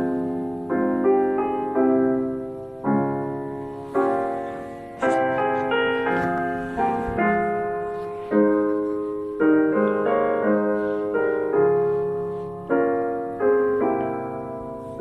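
Background solo piano music: slow chords, each struck and left to fade before the next.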